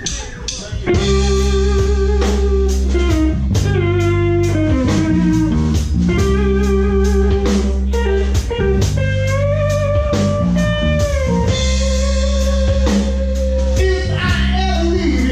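Live band playing a slow blues instrumental opening: electric guitar, electric bass and drum kit keep a steady beat under a lead line of long held notes that bend in pitch.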